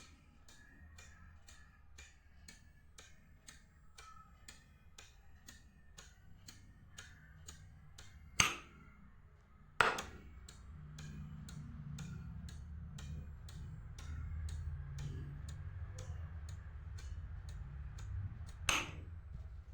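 Even, rapid ticking, about two ticks a second, with three louder sharp clicks at about 8, 10 and 19 seconds in, over a low hum that grows louder after about 11 seconds.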